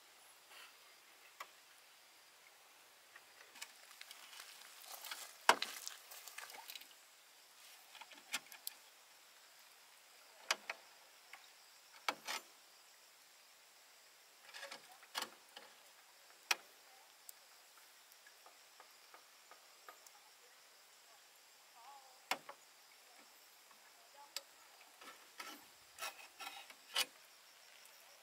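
Faint, scattered clicks and knocks of hand work on bamboo, irregular and about once or twice a second, with a short scrape ending in the loudest knock about five seconds in.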